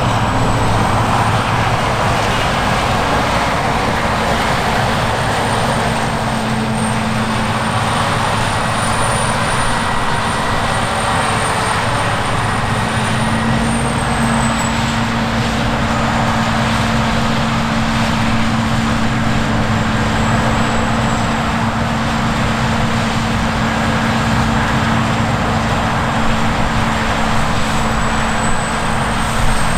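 Heavy harvest machinery running steadily under load: a continuous diesel engine drone with a steady low hum and a thin high whine that drifts slightly in pitch.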